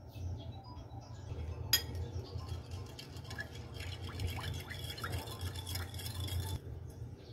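A metal spoon taps once against a ceramic bowl, then stirs a thin dark sauce, scraping and clinking against the sides of the bowl, and stops shortly before the end.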